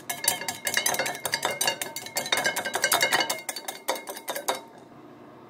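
Wire balloon whisk beating egg yolks in a bowl as oil goes in for the sauce: a fast, rapid run of metallic clicks and chinks of the wires against the bowl, stopping about four and a half seconds in.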